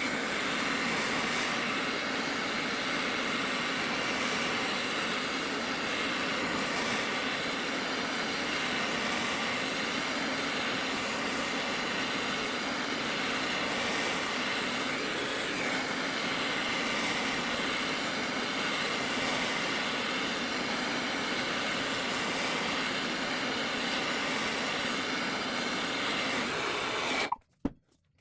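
Gas torch burning with a steady rushing hiss while preheating the steel engine mounts before welding, shut off suddenly near the end.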